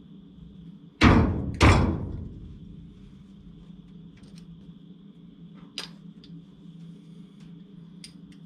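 Two loud bangs in quick succession about a second in, each ringing out briefly, from work on the car's front-end sheet metal, followed by a few light tool clicks over a steady low shop hum.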